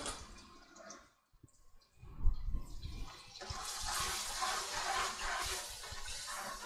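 Ginger-garlic paste frying in hot oil in a metal pot, sizzling as it is stirred with a slotted spoon. A single knock about two seconds in, then the sizzle swells into a steady hiss from about halfway.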